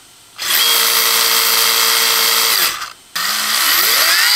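An electric RC drift car motor and drivetrain spinning freely at full throttle with its direction reversed in the ESC, a steady high whine that winds down about 2.7 s in. The lower top RPM in reverse comes from the motor's timing not being accounted for when the ESC reverses it. After a brief pause the motor spins up again in its standard direction with a rising whine.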